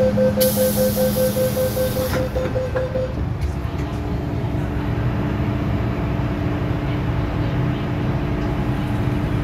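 Rapid electronic door-closing warning beeps on an MTR platform, a quick string of identical beeps over a hiss, stopping about three seconds in. A steady train and station hum continues afterwards.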